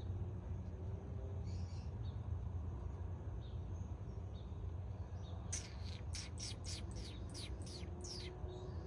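A small bird calling a rapid run of about ten high notes, each falling in pitch, lasting about three seconds past the middle. A steady low rumble runs underneath.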